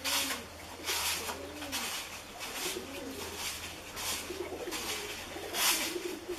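Doves cooing over and over in low, soft, rising-and-falling coos, over short rustles and scratches about once a second from hands working tie wire and coconut husk.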